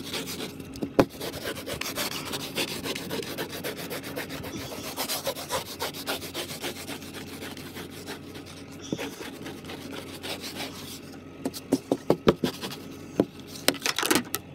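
Ice scraper scraping ice off a car windshield in repeated rasping strokes, with a run of sharper, louder strokes near the end.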